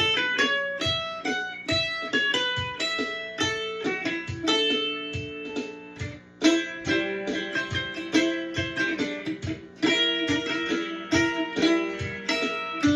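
Ibanez M500 mandolin strung with new D'Addario strings, picked as a single-note melody with ringing notes. There is a brief pause a little before halfway, then a strong pluck as the tune resumes.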